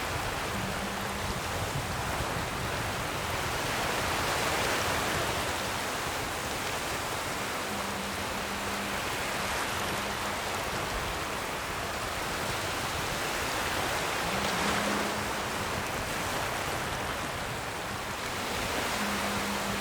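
Ocean surf washing in: a steady rush of water that swells and eases every few seconds.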